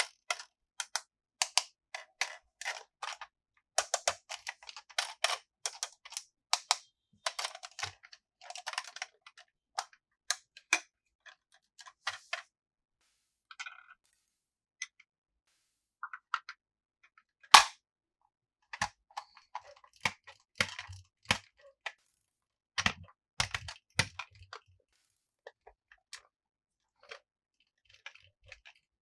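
Small plastic items and packaging being handled up close: a dense run of crackles and clicks, then sparser clicks, with one loud sharp snap a little past halfway and a few knocks with a low thud soon after.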